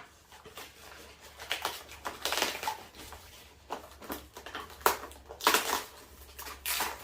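Packaging being handled: irregular rustling, scraping and crunching of styrofoam and plastic wrap as parts are lifted out of the box, with a few sharp clicks.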